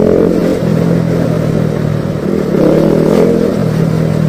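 Motorcycle engine running under way, picked up by a helmet-mounted action-camera mic with some wind rush; the engine note swells louder for about a second around two and a half seconds in, then eases back.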